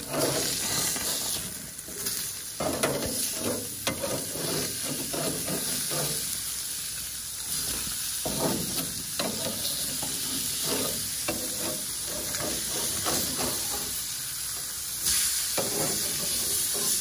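Thick steaks sizzling on hot grill grates, a steady hiss, with a metal spatula now and then scraping and tapping against the grates as the steaks are lifted to check them.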